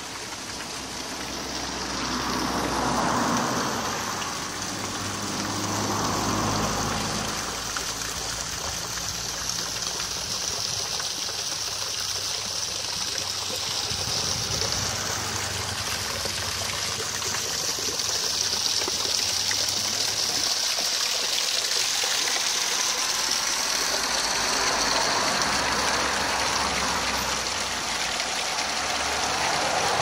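Steady splash of water pouring down the side of an artificial waterfall made from a chestnut tree stump and falling into its stone-edged pool. A low rumble swells and fades twice in the first several seconds.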